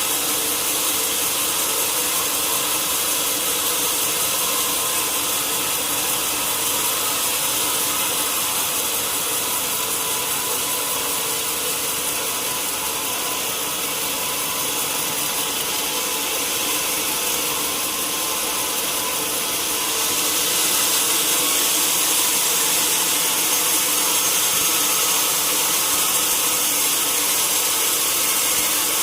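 Sawmill saw running steadily as it cuts lengthwise through a large log, a continuous high whining rasp that gets a little louder about two-thirds of the way through.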